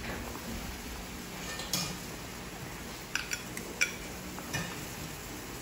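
Stainless steel tongs clinking against a porcelain plate and steel steamer tray while marinated chicken pieces are arranged. There is one sharp clink a little under two seconds in and a quick run of several more from about three to four and a half seconds in.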